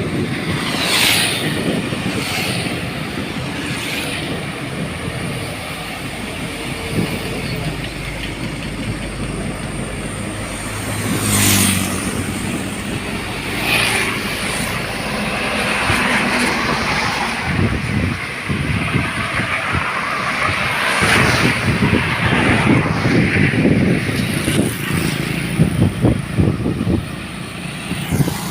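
Road traffic going by: engine and tyre noise of passing vehicles, swelling and fading as each one passes.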